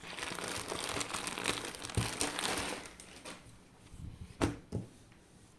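Parcel packaging crinkling and rustling as it is handled and opened, dense for about three seconds, then a few sharp taps or clicks.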